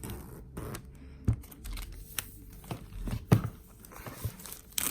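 Plastic wrapping crinkling and being torn open on an Apple Watch box, with irregular taps and knocks as the box is handled.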